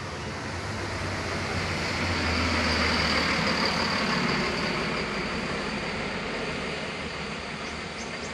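Coach bus driving past: its engine hum and tyre noise swell to a peak about three seconds in, then fade as it pulls away.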